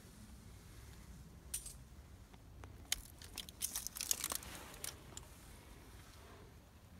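Faint footsteps on rock scattered with grit and dry pine needles: a cluster of crisp crunches, scrapes and clicks in the middle, over a low rumble.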